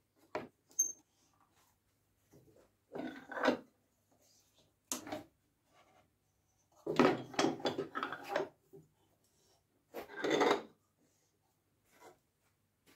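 Wood being worked during the building of a wooden bowed lyre: short separate bursts of scraping and knocking, a cluster of several quick strokes near the middle, with pauses between.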